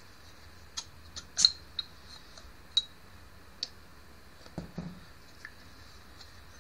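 Small metal parts of a brake master cylinder clicking and tapping together as it is worked on by hand: half a dozen separate sharp clicks, the loudest about a second and a half in with a short ring after it, then a duller knock a little past the middle.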